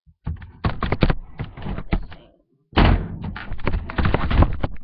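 Handling noise of a camera being picked up and moved: thumps, knocks and rubbing right against its microphone, in two spells with a short break about two and a half seconds in.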